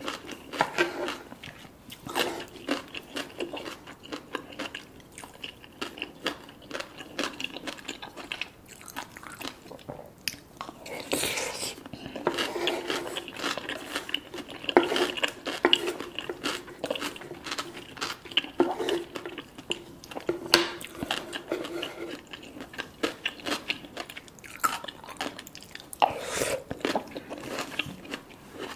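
Close-up eating sounds: crisp food being bitten and chewed, with many irregular crunches.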